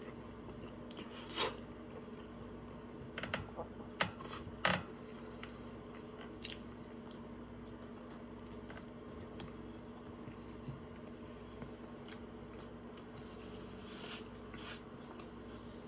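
Close-up chewing and biting of a soft bread-roll sandwich, with a few louder wet smacks and crunches, mostly in the first five seconds, over a steady low hum.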